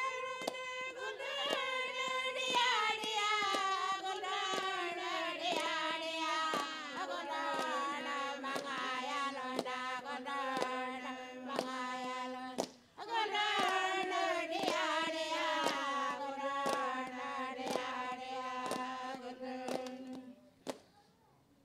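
Anangu inma song: a singing voice carries two long phrases, each falling step by step in pitch, over a steady struck beat, with a short break between them about 13 seconds in. The singing stops shortly before the end.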